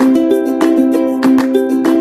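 Background music: chords strummed on a plucked string instrument in a steady rhythm, about three strums a second.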